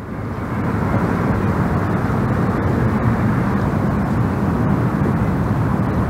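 Distant engine noise: a steady rumble that swells up over the first second and then holds.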